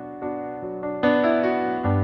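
Keyboard piano intro of a gospel song: soft sustained notes and chords, a few new notes struck about a second in, with a deep bass note entering near the end.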